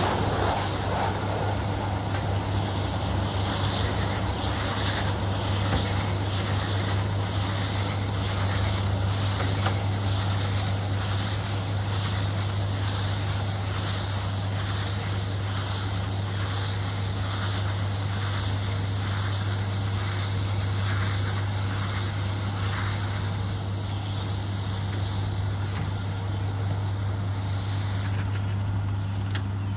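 Tractor engine running at a steady speed while pulling a Kuhn FBP 3135 baler-wrapper, with a constant low hum and a regular clatter from the machinery. It grows slightly fainter as the rig moves away.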